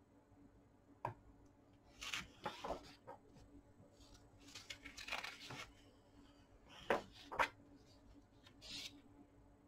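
Glossy pages of a large hardbound book being turned and smoothed by hand: a soft tap about a second in, then several brief paper swishes and rustles.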